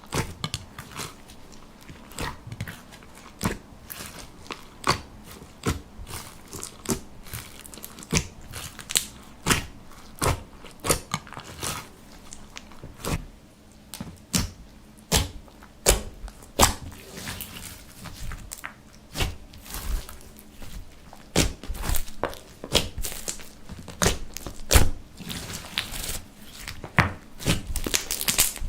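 Slime being worked by hand, giving a run of irregular sticky clicks and pops, one or two a second.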